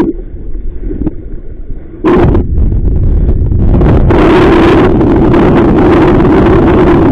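Strong wind buffeting the microphone, a heavy rumbling rush that eases off briefly at the start and comes back loud about two seconds in.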